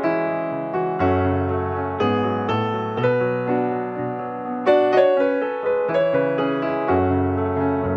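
Instrumental piano music: chords struck about once a second, each fading before the next, over low bass notes.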